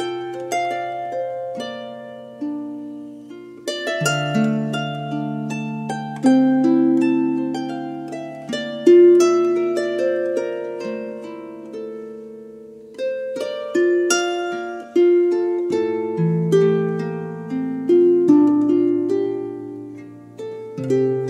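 Instrumental background music: a flowing run of plucked notes, each starting sharply and ringing away, over held low notes.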